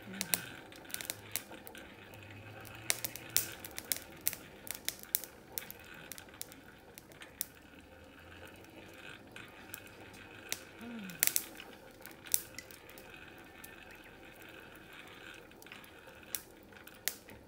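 Charcoal fire in a brazier crackling and snapping with sharp, irregular pops over a steady whirring hiss from a hand-cranked blower forcing air into the coals, which are heating branding irons red hot.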